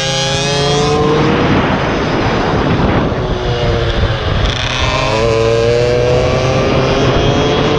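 Polini 70 cc air-cooled minimotard engine running hard under acceleration, its pitch climbing, easing about three seconds in, then climbing again from about five seconds, over a steady rushing noise.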